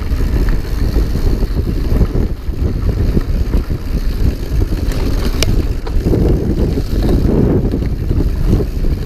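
Wind buffeting the microphone over the rumble and rattle of a cross-country mountain bike descending fast on a dirt singletrack, with one sharp click about five seconds in.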